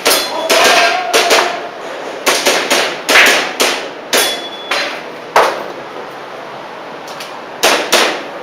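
Airsoft pistol shots fired in quick strings, each a sharp crack a few tenths of a second apart. The shots pause for about two seconds past the middle, then pick up again near the end.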